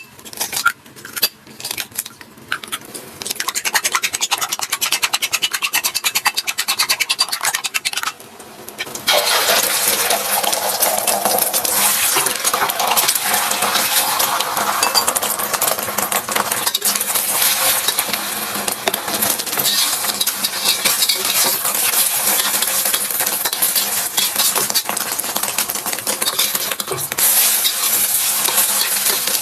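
Food frying in a pan while being stirred, with utensil clicks against the pan at first and then, from about nine seconds in, a loud steady sizzle full of scraping and tapping of the spatula.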